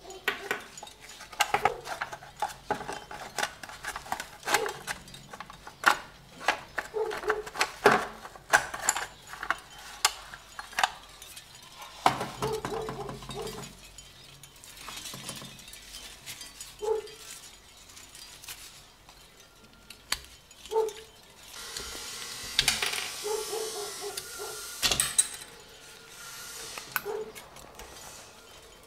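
Metal and plastic parts of a rusty toy model school bus clicking, knocking and clinking as it is taken apart by hand and pried at with a flat metal tool. Short squeaks every few seconds, and a stretch of scraping about three-quarters of the way in.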